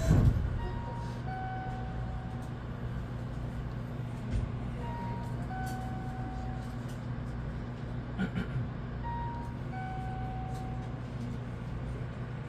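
Steady low electrical hum of a Semboku 9300-series train, heard from the cab, with a thump right at the start. A short three-note electronic chime repeats about every four seconds over the hum.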